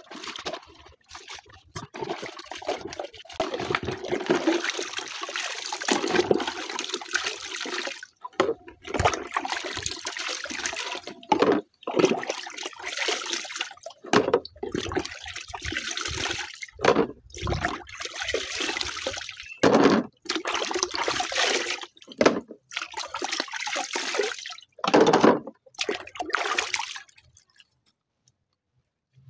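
Water splashing and sloshing in plastic basins as plastic cups are washed and rinsed by hand. It comes in stop-start spells and dies away near the end.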